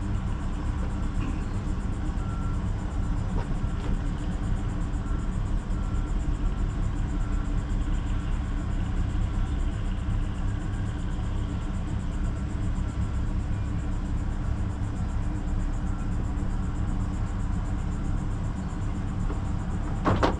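Outboard engine of a Pursuit C238 center-console boat idling: a low, even rumble that holds steady.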